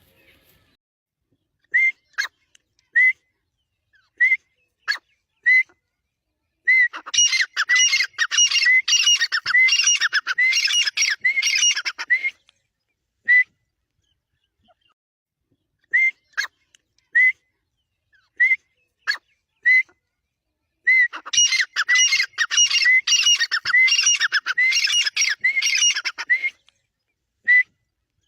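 A teetar (francolin) calling: sharp single notes about a second apart, broken twice by a long run of rapid repeated calls lasting about five seconds each.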